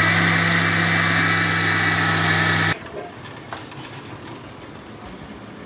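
Panasonic Super Mixer Grinder (MX-AC300S) motor running steadily, with a low hum and a high whine, as it blends mango and milk into a shake. It is switched off and cuts out suddenly a little under three seconds in, leaving only a few faint clicks.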